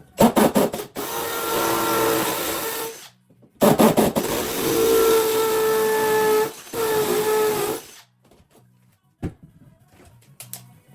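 Electric drill boring holes into a wall, run in two bursts of about three and four seconds with a short pause between, the motor holding a steady whine under the grinding of the bit.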